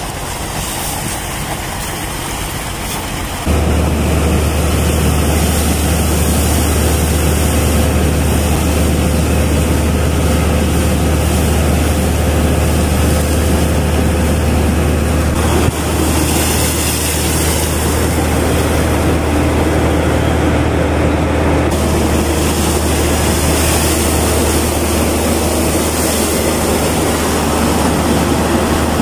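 Water-well drilling rig running steadily. A heavy engine hum, louder from about three seconds in, sits under a loud rushing hiss as mud and water spray up out of the borehole.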